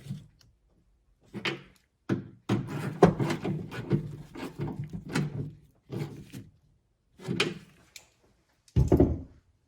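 Knocks and clunks of tools and trunk-lid parts being handled as nuts are tightened on the lid, in short separate bursts with a longer run of clatter in the middle.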